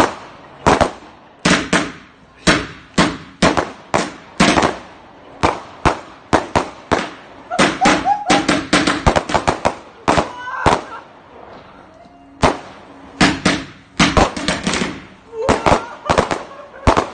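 Astra Air Collision 110-shot firework barrage cake firing shot after shot: sharp bangs of launches and bursts come several a second. A lull of about a second and a half comes about two-thirds of the way through, then the rapid firing resumes.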